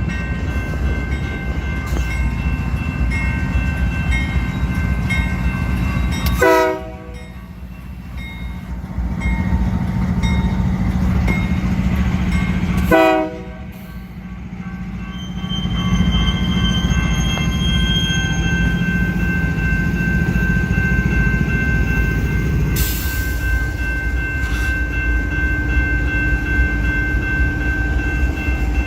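Union Pacific freight train rumbling, with its K3LA air horn sounding. Two short, loud sounds stand out, about six and thirteen seconds in.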